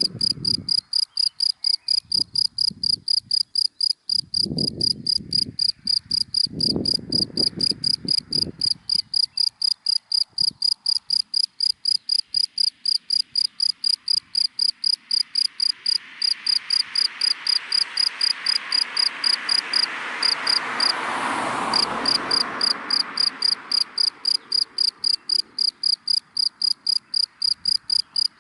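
A single cricket chirping steadily and rhythmically, about three to four high chirps a second. A passing car swells up and fades away in the background about two-thirds of the way through, and there are low, uneven rumbles in the first third.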